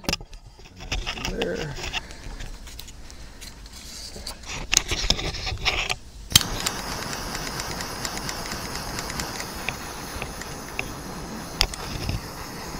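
Wires and heat-shrink tubing handled with small rustles and clicks, then about six seconds in a click and a small handheld heat gun starts, its fan blowing steadily as it shrinks tubing over a wire connection.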